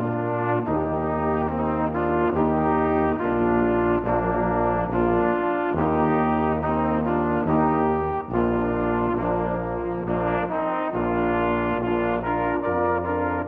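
Slow brass ensemble music: held chords over a low bass line, the chords changing about once a second.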